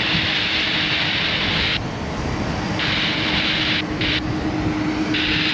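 Jet airliner engine noise, a steady broad rumble with a low hum, overlaid by a hiss that cuts in and out abruptly about four times.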